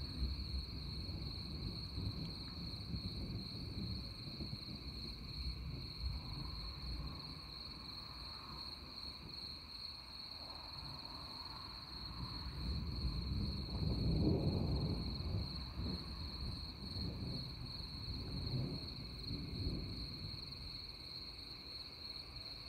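Distant thunder rumbling low, swelling to its loudest about fourteen seconds in and then easing off. A steady high insect chirring runs throughout.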